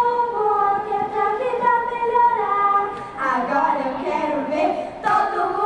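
Children's choir singing long held notes, with a short break about three seconds in before the singing goes on.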